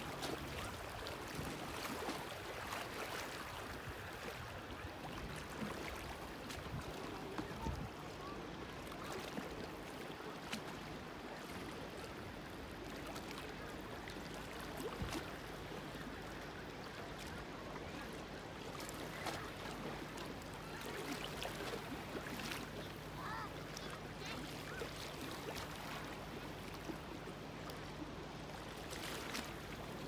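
Lakeside ambience: a steady wash of water lapping against the shore, with faint voices of people in the distance.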